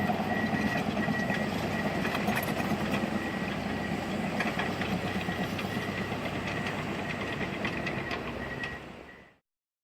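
Komatsu D61PXi crawler bulldozer working: diesel engine running under steel tracks clanking, with a high beep repeating about twice a second. It all fades out near the end.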